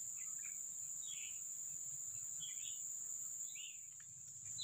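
Insects droning steadily at a high pitch, with faint short chirps about once a second.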